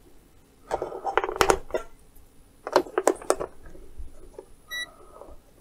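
AA cells being pulled out of and pressed into the battery compartment of a Kaiweets HT118A multimeter: two bursts of clicks and rattles as the cells knock against the plastic and the metal contact springs. A short high beep follows near the end.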